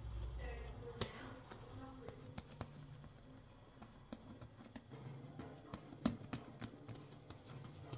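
Hands patting and pressing a ball of yeast bread dough flat on a stone countertop: a run of soft slaps and taps, the loudest about six seconds in.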